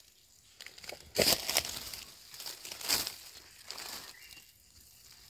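Dry leaf litter rustling and crunching in irregular bursts, loudest about a second in and again around three seconds in.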